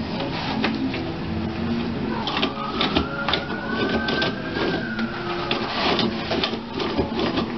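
Toilet paper roll rattling on its wall holder as a cat paws and bites at it, with the paper rustling and tearing in quick irregular clicks and scrapes. A faint gliding tone rises and falls from about two seconds in.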